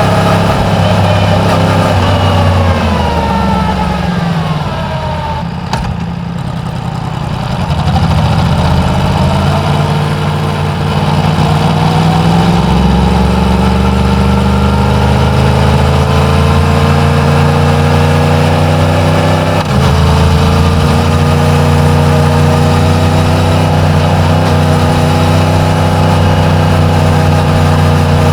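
Yamaha MT-10's crossplane inline-four on its stock exhaust while riding. The engine note falls as the bike slows over the first few seconds, then climbs slowly and steadily as it pulls away. There is a brief break about two-thirds of the way through, as at a gear change.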